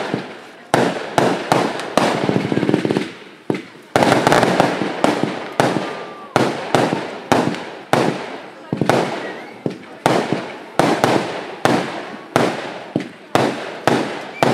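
Fireworks going off in a rapid run of sharp bangs, about two to three a second, each dying away with an echoing tail.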